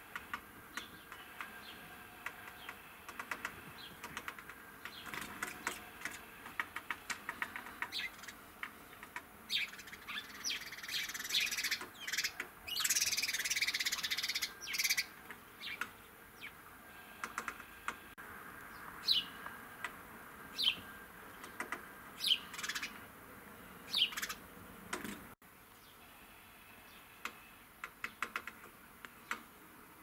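House sparrow at a shiny metal downpipe: runs of quick clicks as its bill taps on the metal, a loud scuffling flutter of wings against the pipe about halfway through, and a few short, sharp chirps later on.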